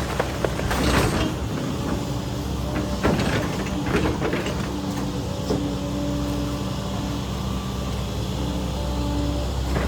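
Volvo EC140 excavator's diesel engine running steadily under working load, with a tone that comes and goes in short spells. Several short crashing, crackling noises come in the first few seconds.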